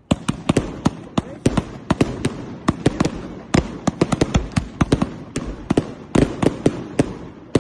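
Firecrackers and fireworks going off: a rapid, irregular run of sharp bangs, several a second, some louder than others, over a steady background crackle.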